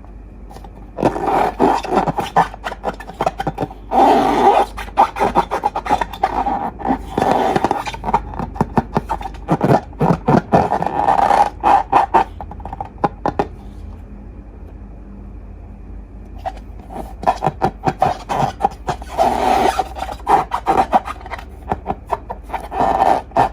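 Slime and balloon rubber being squeezed and worked by hand: bursts of crackling, squishing and rubbing, with a pause of a few seconds about halfway through.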